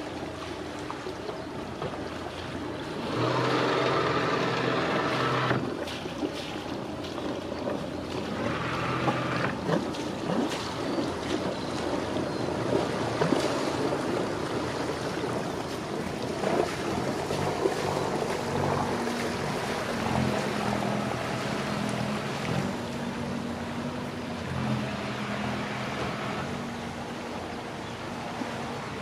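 River motor cruiser engines running as boats pass, over wind noise on the microphone and water washing. One engine note grows louder for a couple of seconds about three seconds in, and another steady engine hum comes through later.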